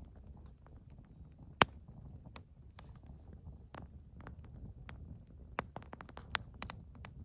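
Wood fire burning in a fire bowl, crackling with irregular sharp pops over a low rumble of flame; one loud pop about a second and a half in, and a quick run of pops near the end.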